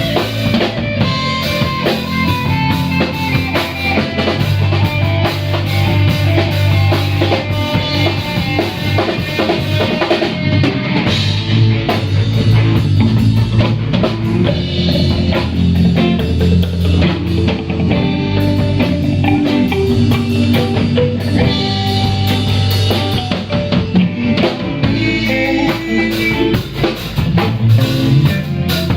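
A band playing an instrumental jam: a drum kit with bass drum and rimshots, under sustained bass and guitar notes.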